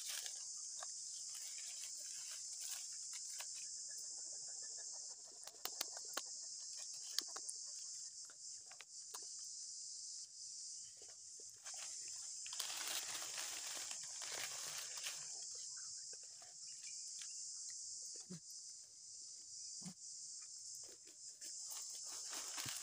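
Steady high-pitched drone of forest insects, with scattered light rustles and crackles of dry leaf litter as long-tailed macaques shift on the forest floor; a louder stretch of rustling lasts about three seconds around the middle.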